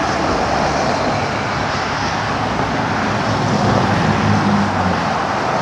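Road traffic passing on a city street: steady tyre and engine noise, with one vehicle's engine loudest about four seconds in.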